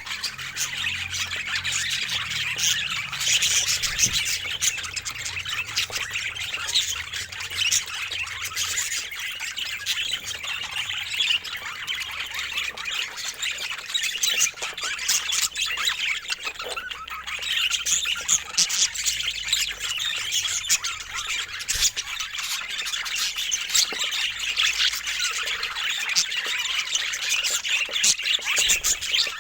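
Budgerigars chattering steadily, a dense, unbroken run of quick chirps and warbling calls.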